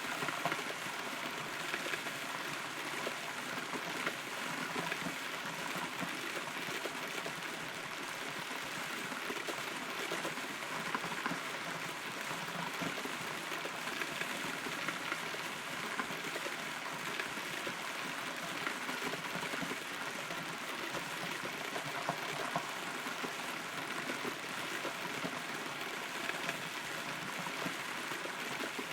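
Steady rain heard from inside a hollow rotten tree trunk, with many small drops pattering on the wood.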